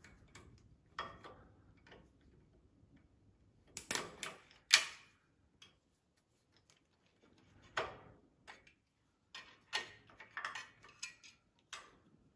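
Pliers clicking and clinking against metal fittings as the fuel line is unhooked at a riding mower's carburetor. Irregular sharp clicks, the loudest a cluster about four to five seconds in, and several more near the end.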